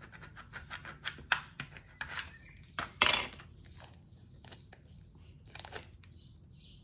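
Adhesive craft vinyl and its transfer tape being handled, rubbed down and peeled by hand: scratchy rubbing and small ticks, with one louder tearing rasp about three seconds in.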